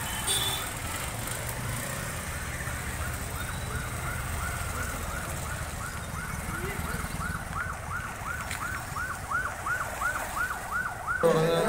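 Ambulance siren sounding a fast wail, a rising-and-falling tone repeating about three times a second, growing louder as it approaches and then cutting off abruptly near the end. Motorcycle engines rumble underneath.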